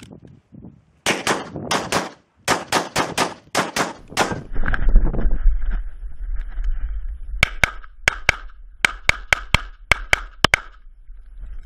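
Rapid gunfire from an AKM carbine, about a dozen shots in quick succession in the first few seconds. After a low rumble on the microphone, a Glock pistol is fired in quick pairs of shots, six pairs over about three seconds.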